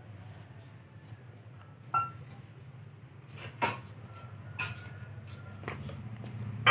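Light clinks and knocks of a drinking glass being handled and set down, four of them about a second apart, over a low steady hum.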